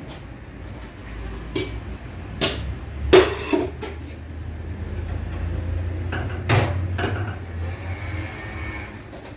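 Several sharp knocks and clatters of kitchenware, the loudest about three seconds in, over a low steady hum.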